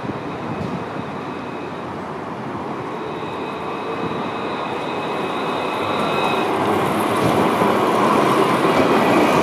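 Luas light-rail tram (an Alstom Citadis) approaching on street track and passing close by. Its running noise grows steadily louder, with a faint steady high whine over the rumble.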